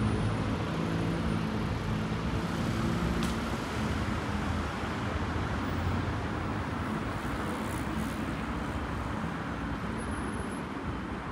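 Road traffic on a city street: passing car engines and a steady hiss of tyres, with a low engine hum that is strongest in the first few seconds and then fades.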